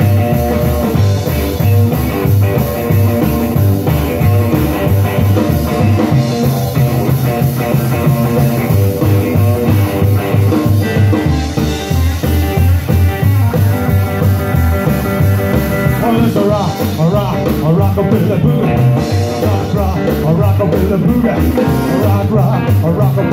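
Live rockabilly band playing an instrumental break: a hollow-body electric guitar takes a solo over upright bass and drums, with bending notes partway through.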